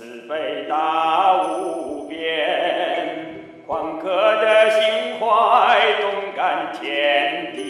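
Chinese Buddhist devotional song: a voice sings four long, sliding phrases in a chant-like style over musical accompaniment.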